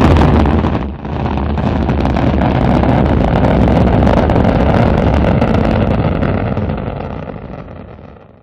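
Rocket engine sound effect: a steady, deep rumbling noise that starts abruptly, dips briefly about a second in, then fades away over the last two seconds.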